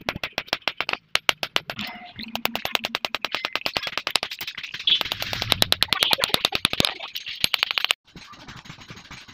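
Hand hammer striking a red-hot knife blade on a small steel anvil in rapid, even blows, about seven a second, with a brief pause about a second in; the hammering stops near the end.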